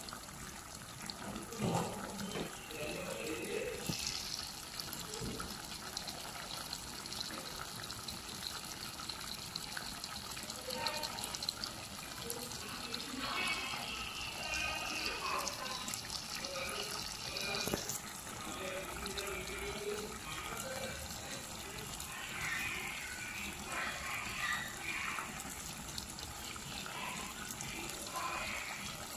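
Catfish curry simmering in a pan, a steady bubbling with small pops.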